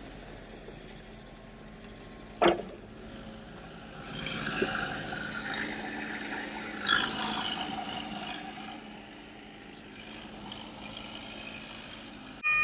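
Tractor engine running steadily, with one sharp knock about two and a half seconds in.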